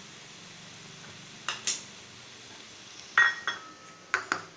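Kitchen dishes being handled: a bowl clinking and knocking about six times, the loudest clink about three seconds in and ringing briefly.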